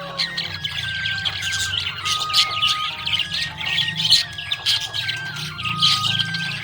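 Budgies chirping and squawking in rapid, continuous chatter, with a slow melody of held notes playing underneath.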